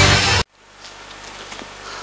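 A TV show's title music ends abruptly about half a second in. After a brief silence comes a faint, steady outdoor background.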